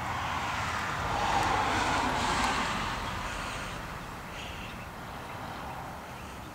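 A car driving past: a rush of tyre and engine noise that swells to its loudest about two seconds in and then fades away.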